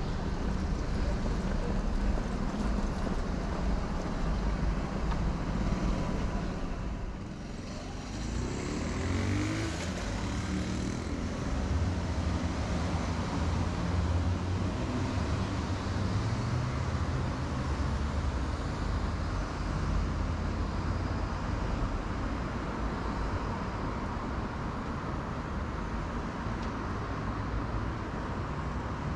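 City street traffic: a steady low rumble of car engines and tyres, with one vehicle pulling away or passing with a rising engine note about eight to eleven seconds in.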